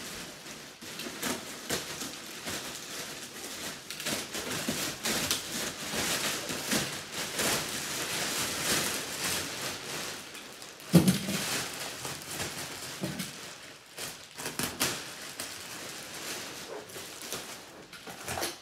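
Thick plastic wrap on a vacuum-packed memory foam mattress crinkling and rustling steadily as it is cut and torn off, with one sharp thump about eleven seconds in.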